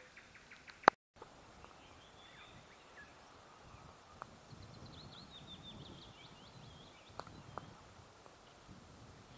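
Songbirds chirping, midway a run of quick falling notes. A sharp click a little under a second in is the loudest sound, followed by a brief dropout to silence; a few faint ticks come later.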